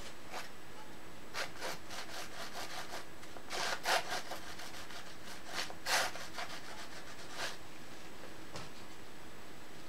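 Palette knife scraping and dabbing acrylic paint onto a stretched canvas in a run of short strokes, two of them louder near the middle.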